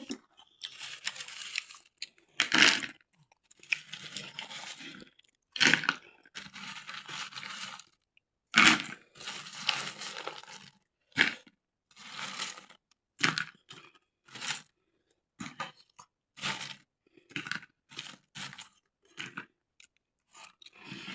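Crispy fries being bitten and chewed close to the microphone: a series of irregular crunches about once a second.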